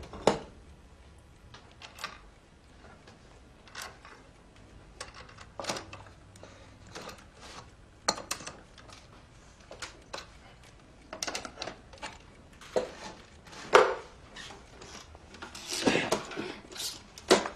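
Scattered light knocks and metal clinks from a wooden and bamboo baby crib being assembled by hand, with a wrench working a nut on one of its wooden wheels. A few louder knocks come near the end as the frame is handled.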